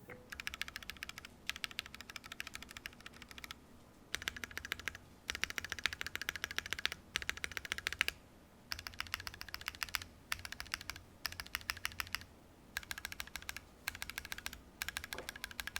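Typing on a Keychron Q1 mechanical keyboard fitted with lubed Akko screw-in stabilizers: rapid runs of keystroke clacks in bursts of a second or two, with short pauses between.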